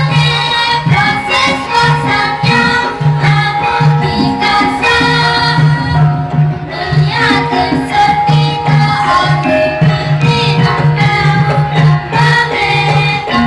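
Javanese gamelan (karawitan) music: tuned metal keyed instruments and gongs ringing in sustained tones over a regular low pulse, with drum strokes and voices singing along.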